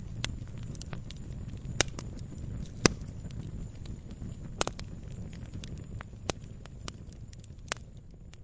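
Firewood burning, with irregular sharp pops and snaps over a steady low rumble of flame. The loudest snaps come about two and three seconds in.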